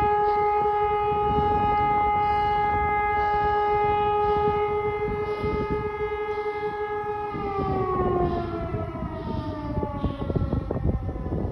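Outdoor civil-defense siren sounding a steady held tone, then winding down, its pitch falling from about seven and a half seconds in.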